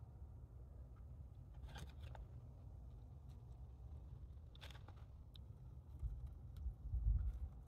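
Eating sounds: fried chicken and chips being chewed and handled with the fingers. A few short crisp clicks and crunches come about two seconds in and again near five seconds, over a low rumble that swells with a few heavier thumps near the end.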